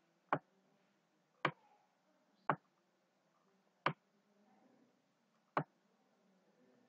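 Five sharp computer mouse clicks, irregularly spaced about a second apart.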